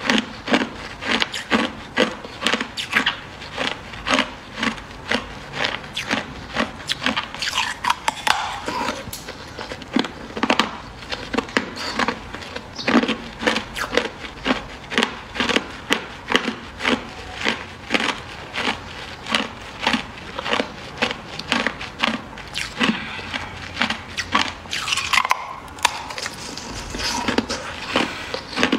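Hard ice crunching and cracking in a steady run of sharp crunches, about two to three a second.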